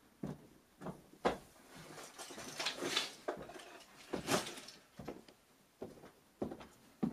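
Footsteps on a wooden floor, a knock about every half second, with a sports bag rustling as it is picked up in the middle and set down on a bed a little past four seconds in.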